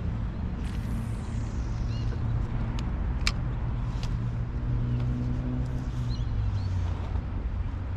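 A motor engine running steadily with a low rumble and hum, the hum rising a little in the middle. There are a sharp click about three seconds in and a few short high chirps.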